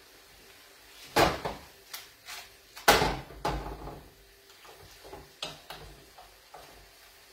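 Frying pan and metal tongs knocking against each other and the gas hob's grate as fettuccine is tossed and worked in the pan. A few sharp clanks, the loudest about a second and three seconds in, with lighter knocks between.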